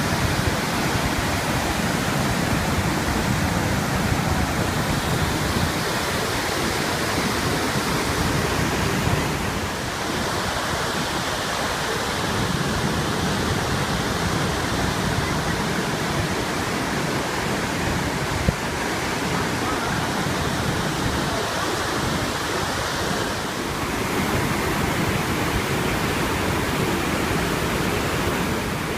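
Iguazu Falls' water pouring down: a loud, steady, unbroken rush that shifts slightly in level twice.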